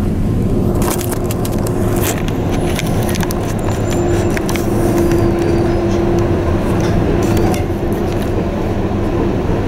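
The icebreaker sightseeing ship Aurora under way through drift ice: a loud, steady rumble with a constant hum from the ship, broken by scattered short cracks and scrapes as ice floes are broken against the hull.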